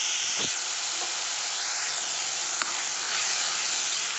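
Onions and a ginger-garlic-chilli paste sizzling steadily in hot oil in a karahi, with one sharp click about two-thirds of the way through.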